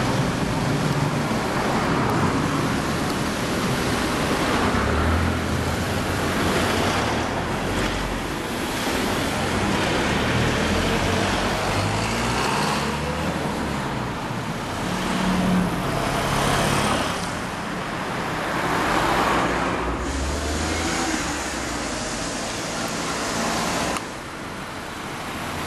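Road traffic: cars driving past one after another, engine and tyre noise swelling and fading several times. The level drops suddenly near the end.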